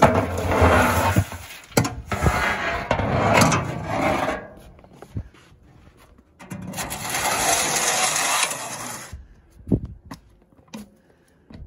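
Heatmaster wood boiler's long steel ash pan scraping: ash tipped and scraped out of it into a steel barrel for about four seconds, then after a short pause the pan slid back into its slot under the firebox for about three seconds, ending in a sharp knock.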